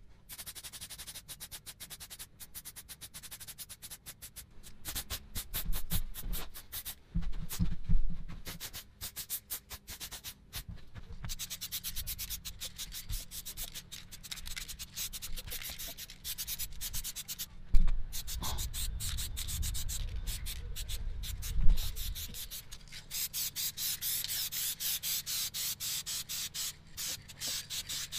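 Aerosol spray can hissing in many quick short bursts as paint is sprayed in passes, with a few sharper knocks in between.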